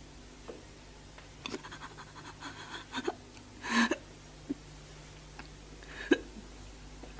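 A woman sobbing: short broken gasps and whimpering breaths in irregular bursts, the strongest about four seconds in, with one more sharp gasp near the end.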